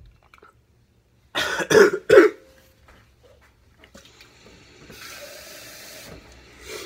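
A man coughs hard three times in quick succession, about a second and a half in, after swallowing a mouthful of mayonnaise.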